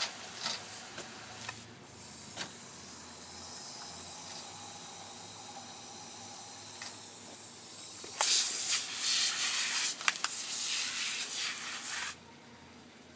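Water spraying from a hose, a softer steady stream at first, then a louder spray for about four seconds that cuts off suddenly.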